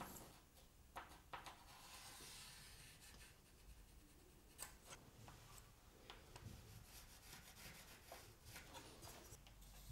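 Faint scratching of a pencil drawing lines along a steel ruler on a melamine window-sill board, with a few light clicks.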